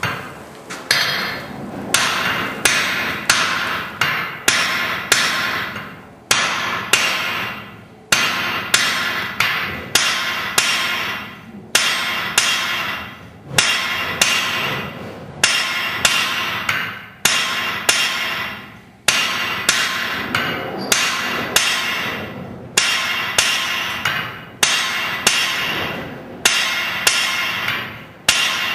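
Hand hammer forging hot steel on a Hofi anvil, offsetting a short bar: a steady run of blows, about two a second, in short groups broken by brief pauses. Each blow is followed by a short metallic ring.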